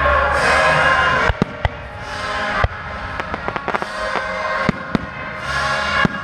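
Aerial firework shells bursting with sharp bangs, several in quick succession between about one and four seconds in, over orchestral music.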